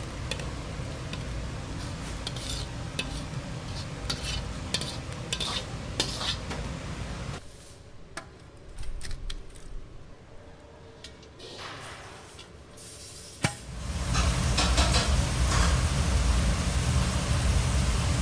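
Utensils and dishes clinking and scraping at a buffet, scattered sharp clicks over a busy noisy background that drops quieter about halfway. About three-quarters of the way in, a loud, steady, low rumbling noise cuts in.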